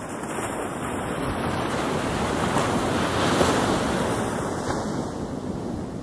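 Ocean surf: one wave swelling to its loudest about halfway through, then washing back.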